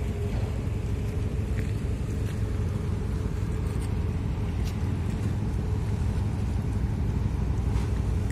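Steady low rumble of ferry engines running.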